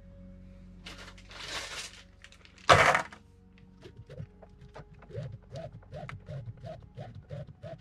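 Workbench handling noise: a rustle, then a loud crinkling clatter as a plastic bag of steel balls is picked up, followed by a quick run of light taps and clicks.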